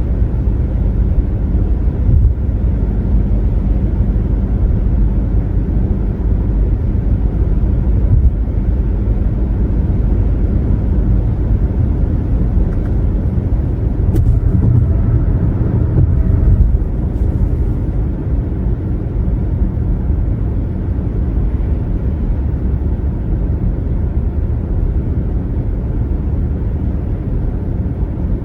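Steady low rumble of a car cruising on a highway: tyre and road noise mixed with engine drone, swelling slightly about halfway through.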